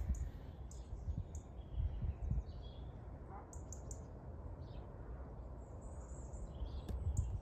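Outdoor garden ambience: an uneven low rumble with a few faint, short bird chirps.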